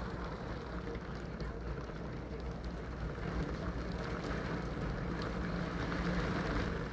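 Steady low background rumble with wind on the microphone.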